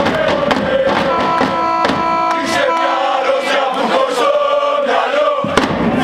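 A crowd of football supporters chanting and singing in unison, with sharp beats about twice a second.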